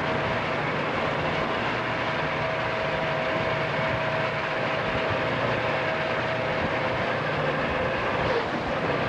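Diesel freight locomotives running steadily at track speed, heard from a car pacing the train, with the car's road and wind noise mixed in. A steady whine sits over the noise for most of it and fades out near the end.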